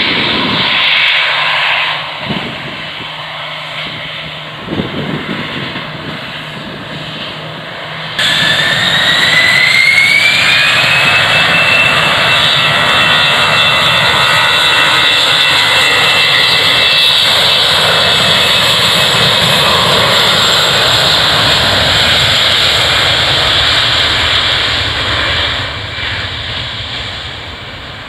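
Airbus A320 airliner's twin jet engines spooling up to takeoff thrust, a whine rising in pitch about eight seconds in and then holding steady under a loud, even engine sound as the jet starts its takeoff roll. The sound fades near the end. A few low thumps come before the spool-up.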